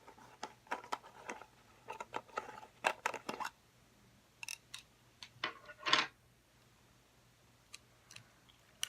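Black putty being handled: a run of sticky clicks, crackles and small pops as it is pulled and pressed, with a louder squelch about six seconds in, then only a few isolated clicks near the end.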